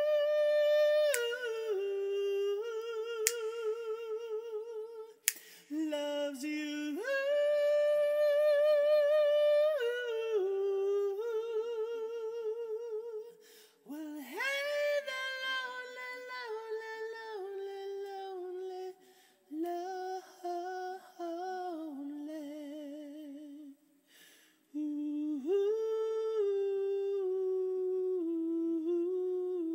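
A man's unaccompanied high falsetto voice humming and singing a slow melody, with vibrato on long held notes and a few brief breaks for breath.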